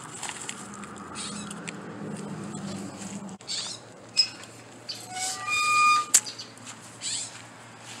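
Acorns rustling and clattering in a plastic crate as a hand scoops up a handful. About five seconds in, a chain-link gate's metal fork latch and hinge give a short squeak, followed by a sharp metallic click.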